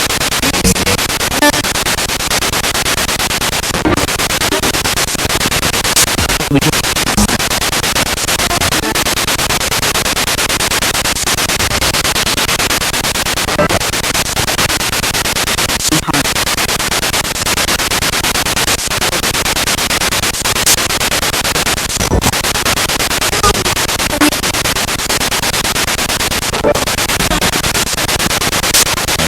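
Spirit box radio sweeping rapidly through stations: a loud, steady hiss of static broken by frequent clicks and brief fragments of broadcast sound.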